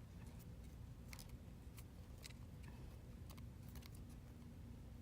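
Faint, irregular small clicks and taps from tools and tiny phone parts being handled on a workbench, over a low steady room hum.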